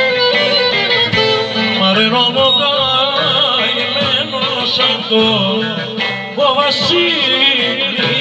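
Live Greek folk dance music: an ornamented, wavering sung melody over plucked-string accompaniment, playing continuously.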